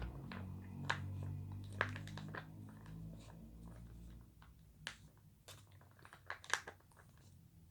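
Homemade toothpaste-and-oil slime being worked by hand or stirred: irregular small wet clicks and squelches, with a low hum that stops about four seconds in.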